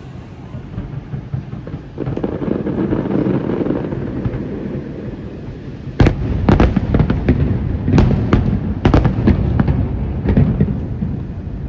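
Fireworks test-firing: a low rumble builds from about two seconds in, then a quick run of loud sharp bangs begins about six seconds in and thins out near the end.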